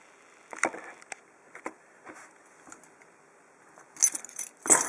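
Small metal objects, such as lockpicking tools and a padlock, being handled and set down on a work surface. Scattered light clicks come first, then a burst of louder clinks and clatter near the end.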